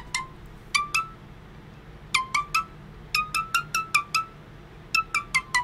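Intro of a Tagalog rap song playing back: a sparse melody of short, high plinking notes, some single and some in quick runs, over a faint low hum.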